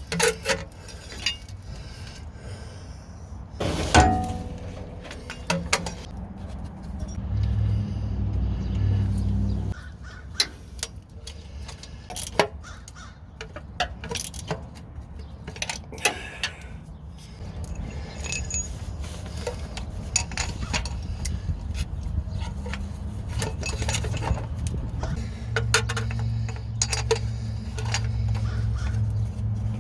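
Hand tools clicking and clinking on metal while a starter motor is swapped, with one loud metallic clank about four seconds in. A low steady rumble comes and goes underneath.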